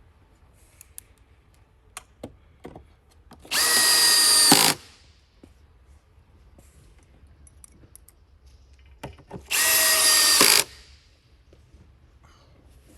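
Cordless drill driving screws into particle board, two runs of about a second each with a steady whine, some six seconds apart, with small knocks and clicks of handling between them.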